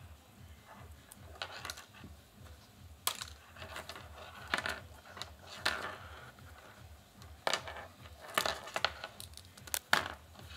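Handling noise from a set of wired earphones being untangled on a wooden table: irregular rustling and a few sharp clicks as the plastic earbuds and cable knock on the wood, over a steady low hum.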